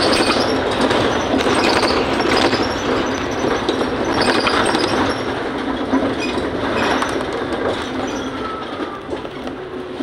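Inside a Mercedes-Benz Citaro O530 facelift city bus on the move: drivetrain and road noise with a constant clatter of rattling panels and fittings, the sign of a worn, neglected bus that shakes all over. The noise eases off near the end.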